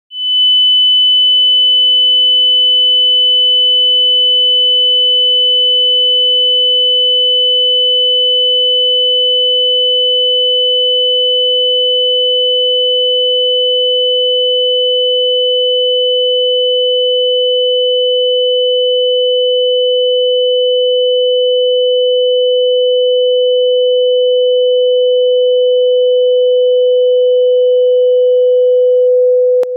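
Two steady electronic sine tones, a high whistle-like one and a lower one that joins about a second in, both held unbroken; the high tone stops near the end. A simulation of the ringing heard with tinnitus.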